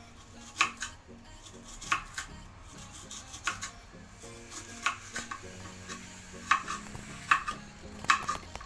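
Kitchen knife chopping red onion on a cutting board: separate sharp knocks of the blade on the board, irregular, roughly one every second, sometimes two in quick succession.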